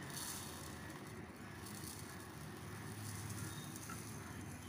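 Dry basmati-type rice grains pouring from a mug into a bowl, a faint steady rustling rattle of grains landing on grains, over a low steady hum.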